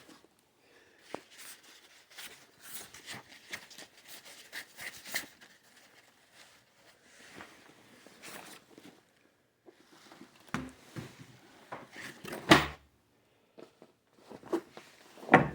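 Hands handling guitar packaging: soft rustling and small clicks throughout, with a few louder knocks near the end.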